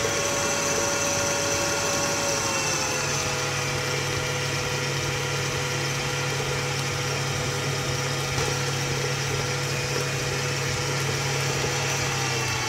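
Electric stand mixer running steadily with its flat beater creaming butter and sugar while beaten egg is trickled in, a motor hum with a whine. Its pitch drops slightly about two and a half seconds in, and it starts to wind down right at the end.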